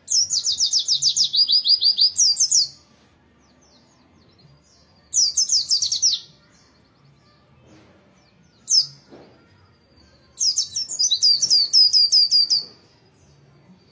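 A white-eye (pleci) singing: fast runs of high, downward-slurred notes in four phrases. A long phrase opens the song, a shorter one comes about five seconds in, a single brief note follows, and another long phrase comes near the end.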